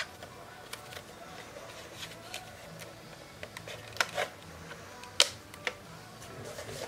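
Handheld label maker and its printed plastic label tape being handled: scattered sharp plastic clicks and taps. There is a strong click right at the start, and the loudest one comes about five seconds in.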